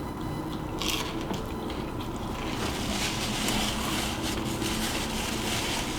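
Close-miked eating: a crisp bite about a second in, then crunchy chewing of deep-fried food, with dense crackling from halfway on.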